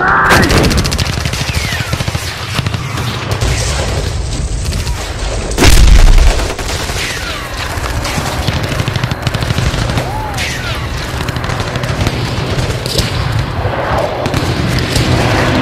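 Battle sound effects: rapid machine-gun fire and shots throughout, with one loud explosion about six seconds in, over a steady low hum.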